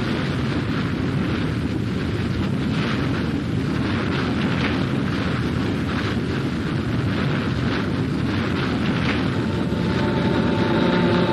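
Cartoon sound effect of boats under way on a rough sea: a steady rush of engines, wind and waves. Near the end a droning tone comes in as enemy aircraft approach.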